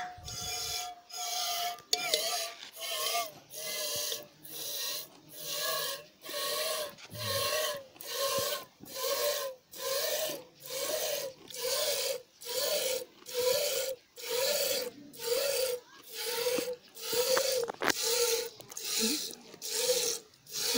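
Hand-milking a goat into a small steel bowl: jets of milk squirt into the metal bowl about once a second, each a hissing spurt with a ringing note from the bowl.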